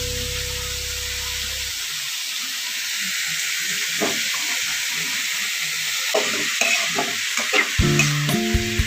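Chopped cauliflower leaves sizzling as they fry in an aluminium kadai. From about four seconds in, a spoon stirs them, with quick scraping clicks against the pan.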